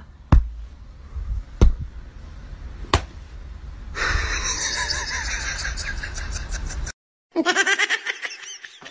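A hand slapping down three times, about a second and a quarter apart, in a hand-stacking game with a French bulldog. It is followed by a few seconds of mixed noise and, near the end, a quick run of pulsing sounds.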